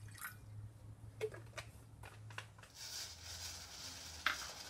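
Garlic cloves and ginger slices dropped one at a time into a stainless steel pot of water, a run of short light knocks. From about three seconds in, the water hisses steadily as it heats, with one sharp knock near the end.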